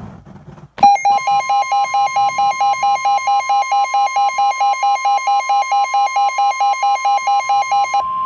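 Emergency alert warning tones. A harsh, buzzy electronic alarm warbles rapidly, about four times a second, over a steady high pure tone. The tones start abruptly about a second in, and the warbling stops near the end while the steady tone goes on.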